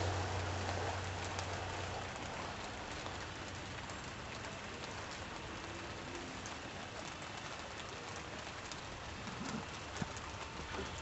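Steady hiss of rain falling, with scattered drops ticking. A low rumble fades out about two seconds in.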